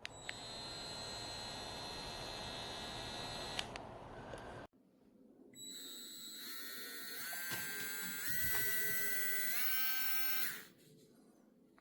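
Small cordless 3.7 V rotary tool motor running with a high, steady whine, cut off abruptly. It starts again and its pitch steps up three times as it is switched through higher speed settings, then it stops.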